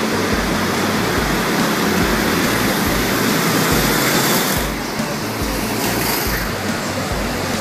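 Several go-karts running laps together, a steady, dense engine noise filling a large hall; it drops a little about two-thirds of the way through.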